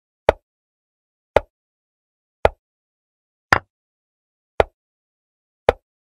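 Chess program's move sound effect: six short clicks about a second apart as the pieces move one by one. The fourth click, about three and a half seconds in, sounds different: the sound for a capture.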